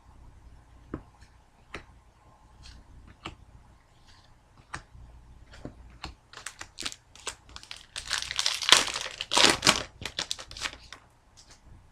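Trading cards and a pack wrapper being handled: light clicks and taps, then a burst of crinkling and tearing about eight seconds in, the way a foil card pack sounds when it is ripped open.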